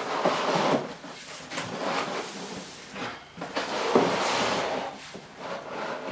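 Cardboard packaging and moulded pulp inserts scraping, with plastic wrapping rustling, as a carpet washer is slid out of its box. The sound comes in several uneven bursts.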